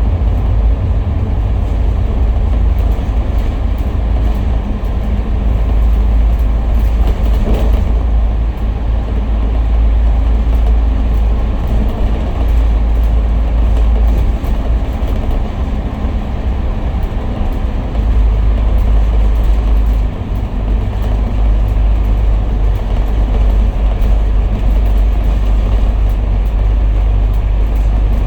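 A bus under way, its engine and road noise making a steady, loud low rumble.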